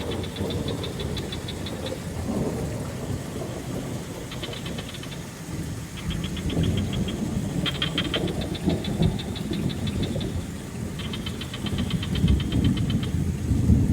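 Frogs calling in several short trills of rapid high clicks, over a steady low rumbling wash of water like rain or thunder.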